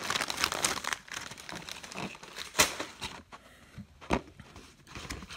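Plastic cookie-pack wrapper crinkling as it is handled and pulled open, densest in the first second, then scattered sharper crackles.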